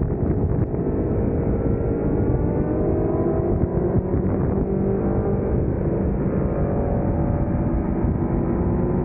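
Aprilia Tuono V4 motorcycle's V4 engine pulling hard on track, its note climbing as the revs rise, over heavy wind rush on the onboard microphone.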